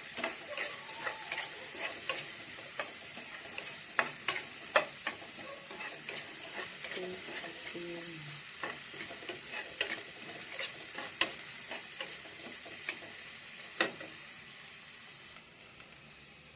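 Chopped onion sautéing in a pan, sizzling steadily while a cooking utensil stirs it, clacking against the pan at irregular moments. The sizzle drops quieter near the end.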